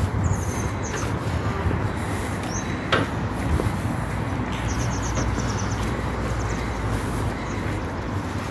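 Steady low rumble of city traffic ambience, with faint high bird chirps, a run of them about five seconds in, and a single sharp click about three seconds in.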